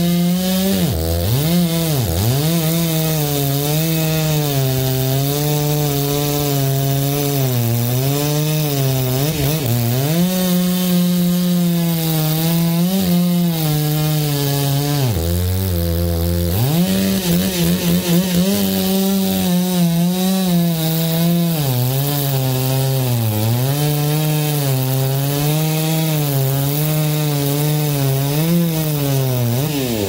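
Two-stroke chainsaw cutting into a stump at ground level. The engine is held at high revs, its pitch sagging and recovering as the chain bites. It drops briefly toward idle twice near the start and once about halfway through.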